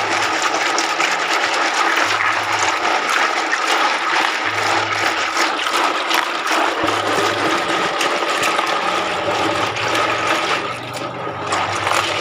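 Freshwater snails being scrubbed by hand in a basin of water: water sloshing and splashing with the small clicks of shells knocking together, briefly easing off near the end. This is the rinsing that cleans the snails, repeated until the water runs clear.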